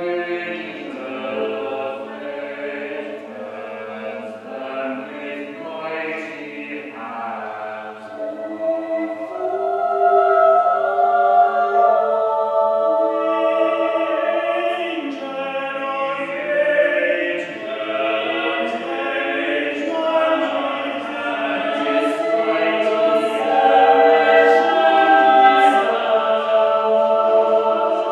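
Small choir of men's and women's voices singing a piece in parts in a large church sanctuary, holding sustained chords; the singing grows louder about ten seconds in.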